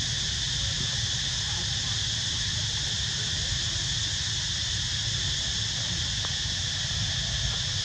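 Steady insect chorus, a continuous high buzzing that never changes, over a low rumble.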